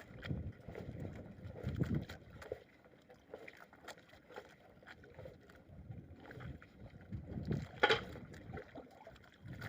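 Water sloshing and lapping in irregular swells, with a sharp knock about eight seconds in.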